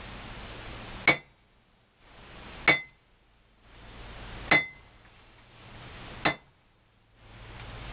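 Hammer striking a chisel on hot iron at the anvil: four sharp metallic blows about a second and a half apart, each with a short ring, as detail is cut into a forged horse head.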